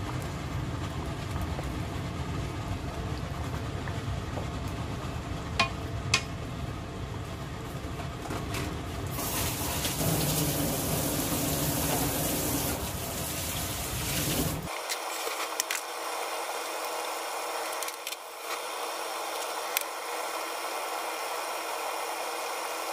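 Chicken stew bubbling in a wide pan as a wooden spatula stirs it, with a few sharp knocks of the spatula against the pan, over a steady low hum. A louder hissing comes in for several seconds in the middle.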